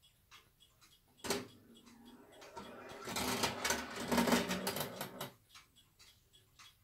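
Electric rolling-ball clock (Roll-O-Clock) tipping its minute rail: a sharp clack about a second in, then about three seconds of steel balls clattering and rolling down the black tracks. The clock's faint, regular ticking comes before and after.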